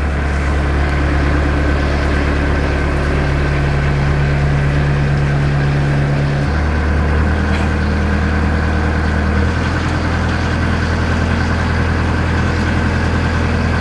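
Narrowboat's inboard engine running steadily while cruising, a low hum whose note shifts about six and a half seconds in and again about nine and a half seconds in.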